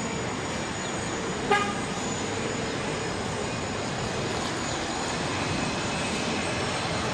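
Boeing 777 freighter on final approach, its jet engines a steady rushing noise that builds slightly as it nears. About a second and a half in, a brief horn-like toot cuts through.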